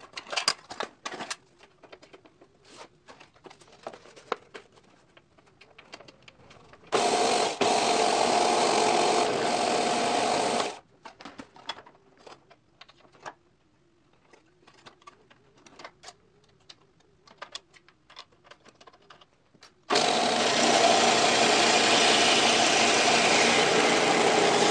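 Light clicks and rattles of a sheet-metal dust hood and fittings being handled on an old belt sander during a belt change. The belt sander's motor and belt run for about four seconds about a quarter of the way in, then start again with about five seconds left and keep running.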